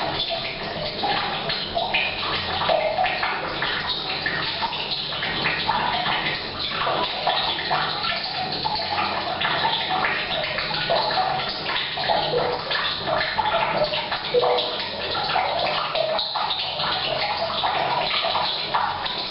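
Rain pattering on the roof, mixed with tap water pouring from a pipe into a tank, both echoing in a bathroom. Steady, with irregular splashes throughout.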